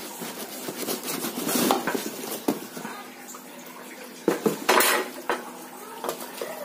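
Plastic wrapping crinkling and rustling as a circular saw is handled and lifted out of its cardboard box, with a few sharp knocks and clatters; the loudest rustle comes a little over four seconds in.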